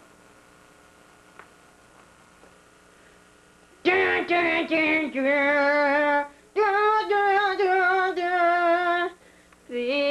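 A woman's voice singing long, wavering held notes in two phrases, starting about four seconds in after a few faint clicks.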